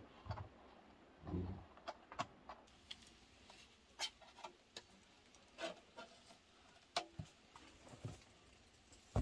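Scattered light clicks and knocks from a metal cake pan being handled: a knife against the pan's rim, then the pan tipped over and lifted off a baked sponge layer, with one dull thump about a second and a half in.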